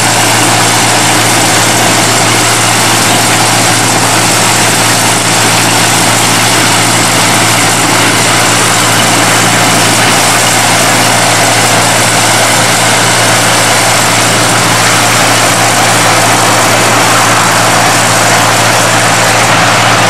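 Small 600 mm narrow-gauge diesel locomotive running at a steady engine speed as it hauls open passenger wagons slowly along the track, with a steady low hum under a constant noisy rumble.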